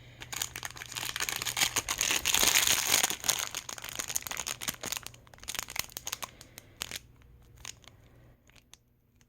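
Plastic packaging crinkling and rustling as a small bag of doll shoes is handled and opened, loudest a couple of seconds in, then dying down to a few faint clicks after about seven seconds.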